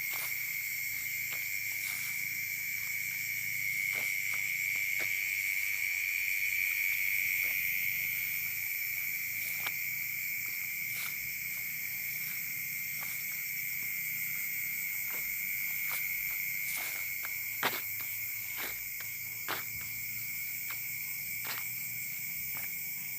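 Night chorus of crickets and other insects trilling steadily at several high pitches, with scattered light clicks or taps, two of them louder about two thirds of the way through.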